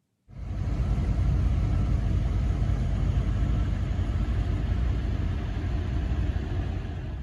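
Steady low rumble of a vehicle running, with engine and road noise, starting abruptly and cutting off suddenly near the end.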